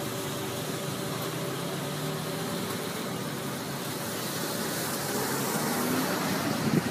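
Steady road traffic noise with a faint low engine hum.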